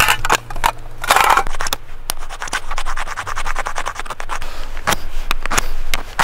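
Steel striker scraped repeatedly along a ferrocerium rod: a series of sharp rasping strokes, some short and some longer, coming fast and close together in the middle stretch.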